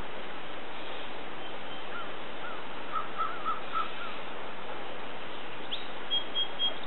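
Birds calling over a steady rushing background: a run of about five short call notes a couple of seconds in, then three short high notes near the end.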